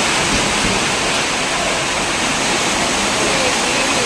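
Strong wind blowing hard: a loud, steady rushing noise.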